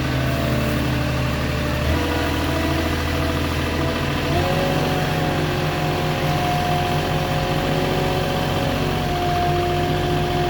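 Engine of a truck-mounted Moffett forklift running steadily, its pitch stepping up about two seconds in and again about four seconds in, then holding.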